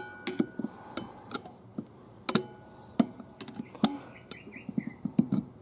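Irregular metallic clicks and clinks of 700R4 transmission parts being handled and pried apart. Several clicks ring briefly like struck steel.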